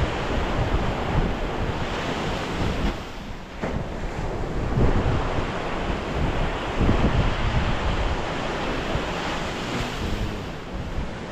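Gulf surf breaking and washing on the beach, with wind buffeting the microphone in gusts.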